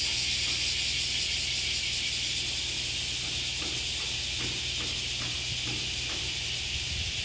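A steady high-pitched hiss with a low hum underneath, and a few faint soft ticks in the middle.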